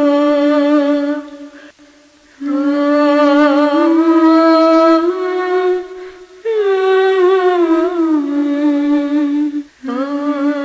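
A single voice humming a slow, wordless melody: long held notes that slide between pitches, with short breaks about two and six seconds in and again near the end.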